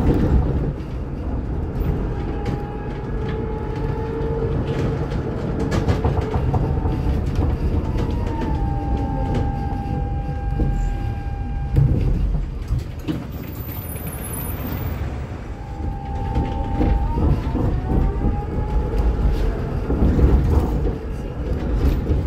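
A city tram running past on street track: its wheels rumble steadily on the rail, and its electric drive whines, holding a tone and gliding up and down in pitch several times. A car passes at the start.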